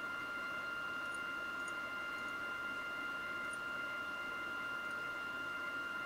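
Steady electronic whine of several constant high tones over a faint hiss, with a few faint mouse clicks.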